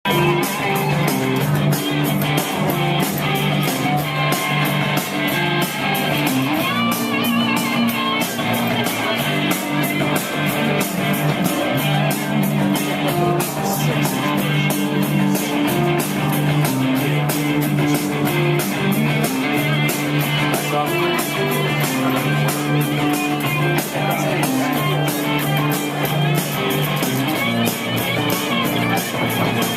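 Rock music: electric guitar playing over a steady drum beat, with a bass line underneath.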